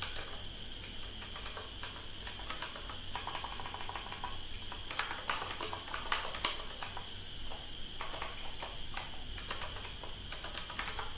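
Typing on a computer keyboard: irregular key clicks, over a steady faint high-pitched hiss and low hum.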